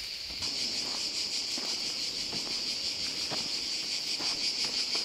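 A steady, dense chorus of insects trilling high, a little louder from about half a second in, with a few faint clicks and rustles of handling underneath.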